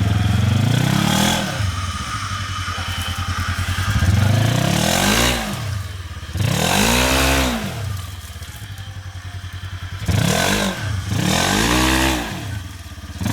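Side-by-side UTV engine revved hard in about five bursts, each climbing in pitch and falling back, with some clatter and scraping: the machine is being pushed at a deep rut that it fails to get through.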